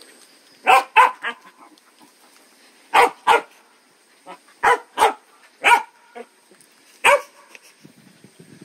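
A dog barking: about nine short barks in groups of two or three, spread across several seconds.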